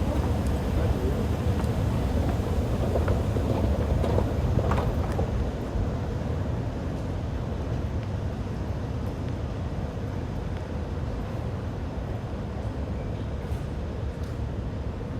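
Stockholm metro train rumbling, a low rumble with a steady hum over it, growing quieter about six seconds in.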